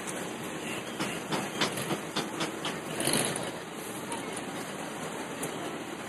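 Cormorants splashing and flapping across the water as they take off: a run of sharp slaps through the middle and a louder splash about three seconds in, over a steady background hiss.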